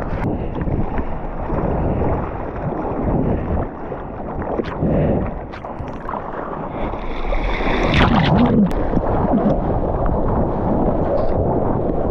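Sea water rushing and splashing around a surfboard as it is paddled out through broken waves, growing louder about two-thirds of the way through as the board punches through a wave. Wind buffets a microphone close to the water.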